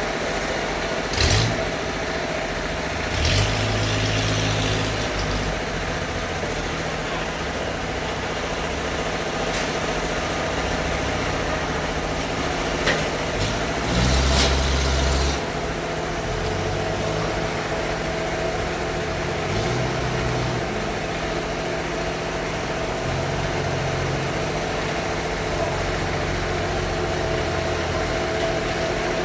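Engine running steadily at a constant pitch, with low swells in its note now and then and a few sharp knocks.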